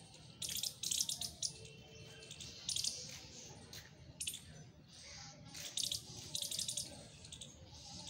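Small birds chirping in short, rapid, high-pitched chattering bursts, repeated several times.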